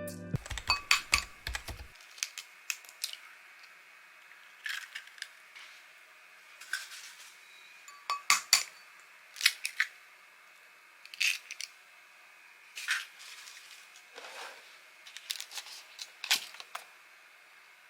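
Kitchen handling sounds: scattered sharp clinks and knocks of dishes and utensils, coming in small clusters every second or two over a faint steady hum.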